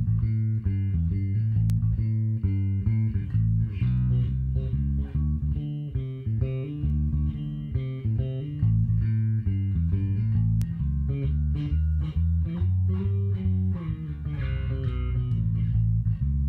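Passive Sadowsky electric bass played solo through a Little Walter PB100 100-watt tube bass head on its bright channel's padded input, into ported 2x10 and 1x12 cabinets. It plays a continuous line of quickly changing plucked notes, with a full low end.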